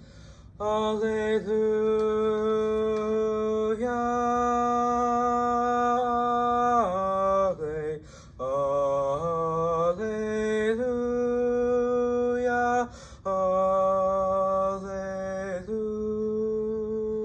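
A young man's bass voice singing a cappella in long held notes on open vowels, breaking for breath between phrases. Near the middle it slides down and moves through a short run of wavering notes.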